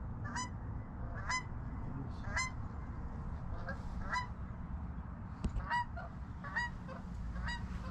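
Faint goose honks: about eight short calls, each a quick hooked honk, spaced roughly a second apart.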